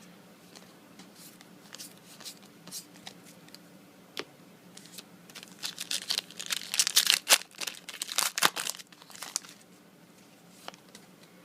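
Foil booster-pack wrapper being crinkled and torn open, with scattered sharp crackles that grow dense and loudest about six to nine seconds in.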